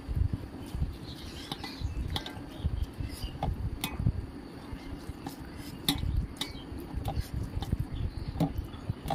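Bare fingers mixing rice with dal on a metal plate: soft squelching and scraping, with scattered sharp clicks as fingers and food tap against the metal.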